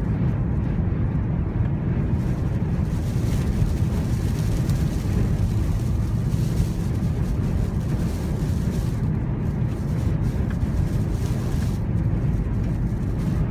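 Wind-blown sand pelting the car's body and windows, a hiss like rain that rises and falls, over the steady low rumble of the car driving through the sandstorm, heard from inside the cabin.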